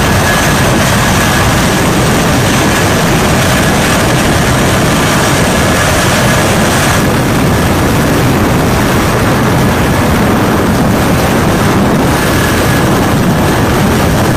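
C-17 Globemaster III's turbofan engines running, a steady loud roar with a thin high whine, its texture shifting slightly about seven seconds in.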